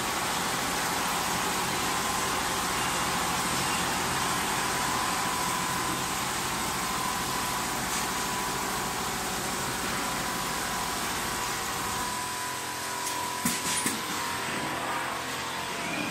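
Seven-head Richpeace automatic sewing machine stitching: a steady mechanical hum with a fast, even chatter of the needle heads and a faint steady whine. About twelve seconds in the low part of the sound drops away, and a few sharp clicks follow.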